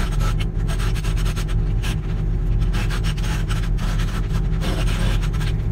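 Hydraulic breaker on a 0.1-class mini excavator, knocking and scraping broken concrete in a steel truck bed in fast motion. It makes a rapid clatter of irregular knocks and grinding over the steady drone of the excavator's engine.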